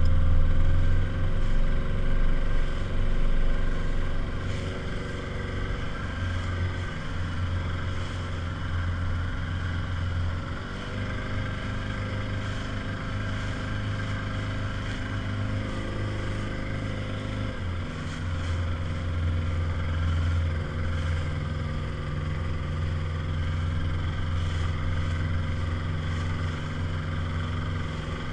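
Small motorboat's outboard engine running steadily under way. It is louder for the first few seconds, and the engine note shifts slightly about eleven seconds in and again near eighteen seconds.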